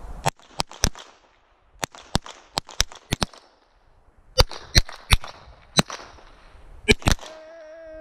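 A rapid series of shots from a large-calibre pistol, a dozen or so sharp cracks at uneven intervals, each with a short echo. A steady held tone starts near the end.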